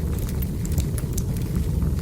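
Wood fire crackling: scattered sharp snaps and pops over a steady low rumble.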